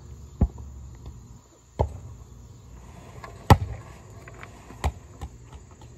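Soccer ball being kicked and bouncing: four sharp thuds spaced about a second and a half apart, the third the loudest.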